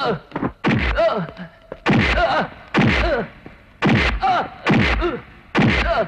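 Film fight sound effects: a run of about seven punch and kick blows, roughly one a second. Each is a heavy thud together with a shouted grunt that falls in pitch.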